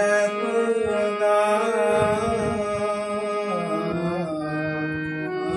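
A man singing a Bengali film song in a slow, wavering melody, accompanying himself on a harmonium that sustains steady held notes beneath his voice.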